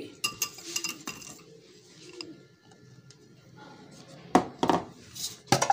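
Kitchen utensils clinking and knocking against a glass mixing bowl of flour: a few light clicks at the start, then several sharp knocks in the last second and a half.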